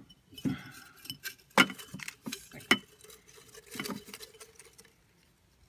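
Folded paper slips rustling and sliding inside a glass jar as fingers rummage through them, with several sharp clicks and taps against the glass. The rummaging stops about a second before the end.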